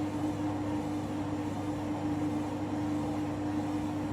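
Candy Grand'O Vita washing machine running its distribution phase on a duvet cycle: the drum motor hums steadily with one held whining tone, turning the drum to spread the load before a spin.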